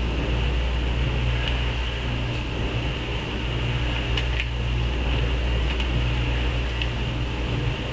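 A Rubik's Cube being turned by hand, its faces giving faint, irregular clicks, over a steady low hum with hiss.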